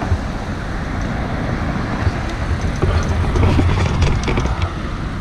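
Road traffic on the car lanes alongside: a steady rumble of passing cars, swelling a little about three seconds in.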